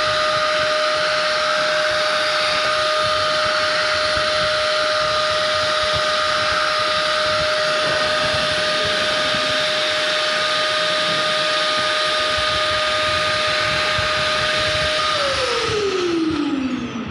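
Vacuum cleaner running with a steady whine over a rush of air, then switched off near the end, its motor winding down in a falling whine.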